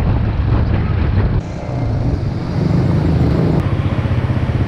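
Motorbike engine running, with an abrupt change about a second and a half in and an even, rapid pulsing near the end.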